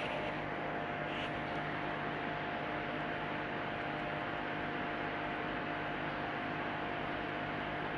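Steady background hiss with a faint electrical hum of several steady tones, without change.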